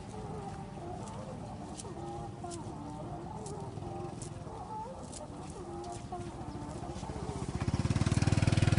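Chickens clucking, with short wavering calls repeating throughout. Under them a small engine runs with a low pulsing rumble that grows louder near the end.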